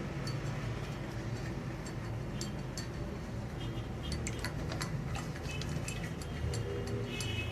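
Scattered light ticks and clinks of glass cups of water being handled, some ringing briefly, over a steady low hum.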